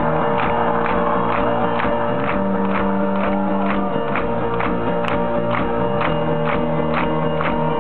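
Live rock band playing over a big festival PA, recorded from within the crowd: held, sustained notes over a steady beat of about two strikes a second.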